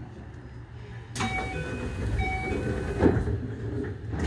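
Keio 8000 series electric train running along the line, a steady low rumble of wheels on track. From about a second in, a louder rushing noise with brief high-pitched tones comes in, and there is a heavy low thump near the end.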